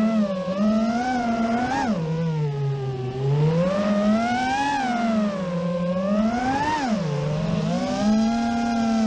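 FPV quadcopter's brushless motors and propellers whining as heard from the onboard camera, the pitch rising and falling smoothly as the throttle changes. The pitch dips lowest about two to three seconds in, climbs again around four to five seconds, drops near seven seconds and holds steadier near the end.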